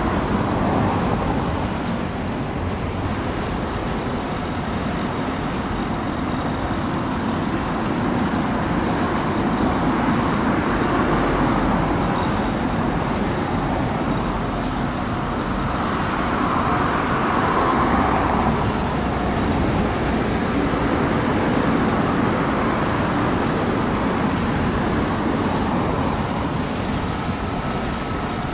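Steady hum and hiss of road traffic, swelling as a vehicle goes by about two thirds of the way through.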